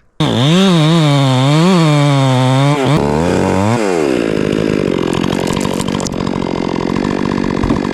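Two-stroke chainsaw running loud, its engine pitch surging up and down about twice a second for the first few seconds, then dropping and settling into a rougher, noisier run.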